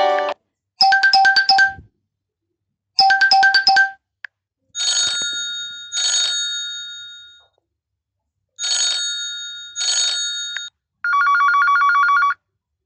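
Huawei Y7 2019 ringtones playing in turn: a quick run of repeated electronic beeps sounds twice, then pairs of bell-like chimes strike and ring out, twice over, and a fast electronic trill closes it near the end. Short silent gaps separate the phrases.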